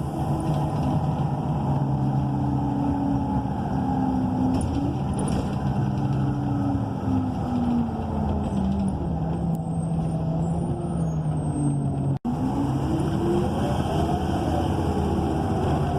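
Cummins Westport ISL G natural-gas engine and Allison automatic transmission of a 2012 ENC EZ Rider II transit bus, heard from inside the cabin: the engine note falls away as the bus slows, then climbs again as it pulls ahead. The sound drops out for a split second about twelve seconds in.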